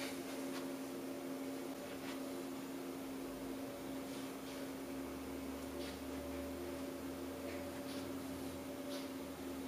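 Faint rustling and a few soft ticks as a muslin cloth backdrop is shaken out and hung over a crossbar. Under it runs a steady electrical hum of several tones.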